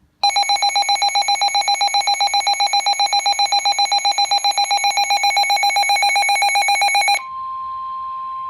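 Emergency alert tones for a severe thunderstorm warning: a loud, rapid electronic beeping alarm, about eight beeps a second, for about seven seconds. It cuts off and a steady single warning tone takes over near the end.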